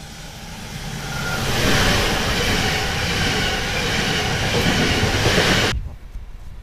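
Electric multiple unit 48WEc-032 passing at speed. The rush of its wheels on the rails swells about a second in, stays loud, then cuts off suddenly near the end.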